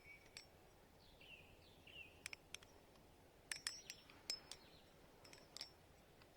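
Butterfly knife (balisong) handles and blade clicking and clinking as the knife is spun through a rollover combo: irregular sharp metal clicks, several with a brief high ring, about nine in all, bunched in the middle. Faint bird chirps in the background.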